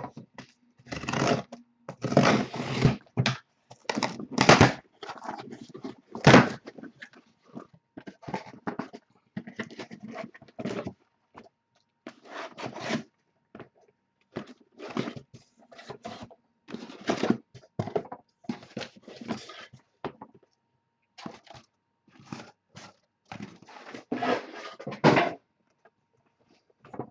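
Cardboard case of trading-card hobby boxes being cut open and unpacked by hand: irregular scraping and rustling of cardboard, with thunks as the boxes are pulled out and set down.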